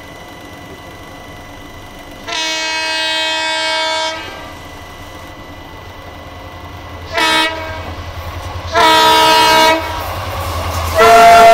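Horn of an approaching WDP4B diesel locomotive sounding again and again: a long blast, a short toot, a longer blast, then a fourth, each louder than the last. Near the end a loud rush of passing-train noise starts, and under it all runs the steady rumble of the train being ridden.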